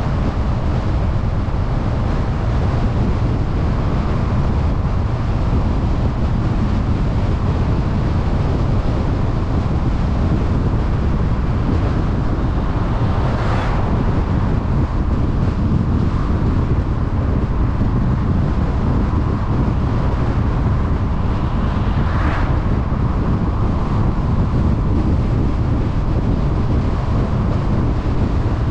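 Car driving at road speed: a steady low road-and-tyre rumble with wind noise on the microphone. Two brief whooshes swell and fade, about halfway through and again about three quarters in.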